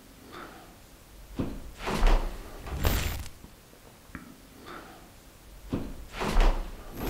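Several dull thuds at uneven intervals, like heavy footsteps in an old house, loudest about two, three and six seconds in. It is taken for an unexplained footstep.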